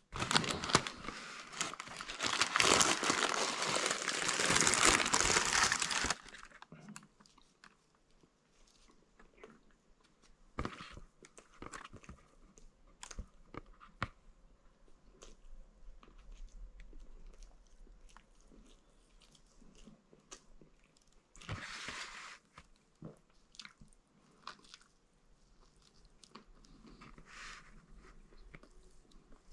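Paper wrapper and bag crinkling loudly for about the first six seconds, then a man eating a fast-food sandwich, with quiet chewing and scattered small crunches and bites.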